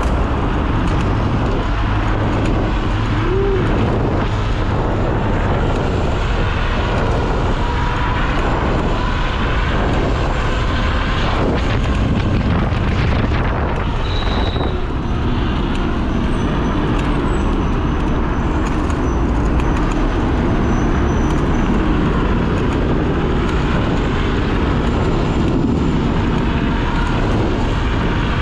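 Steady roar of car traffic echoing in a road tunnel, heard from an electric scooter riding alongside the cars, with a heavy, even low rumble throughout.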